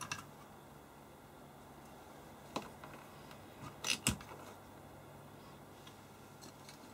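A few small clicks and knocks as the ribbon cable's connector is pulled off the Keithley 197 multimeter's circuit board and the cable is laid aside in the plastic case, the loudest a sharp knock about four seconds in. Otherwise faint room tone.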